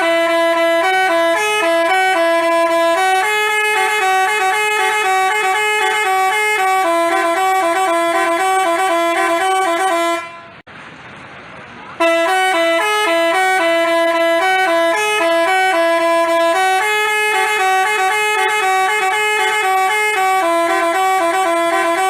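Basuri telolet bus horn playing a quick melody of stepping tones. It breaks off for about a second and a half near the middle, then starts again.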